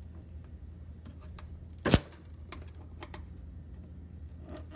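A flathead screwdriver working at the adhesive under a plastic console membrane: a few faint small clicks and one sharp click about two seconds in, over a steady low hum.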